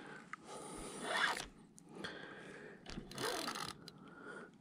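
Spinning reel working against a hooked catfish during the fight: a zipping, scraping reel noise in two spells, from about half a second in to a second and a half, and again about three seconds in.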